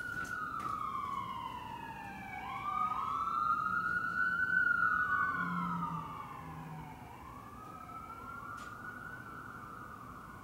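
Emergency vehicle sirens wailing, two overlapping, each slowly rising and falling in pitch over several seconds; loudest about halfway, then fading.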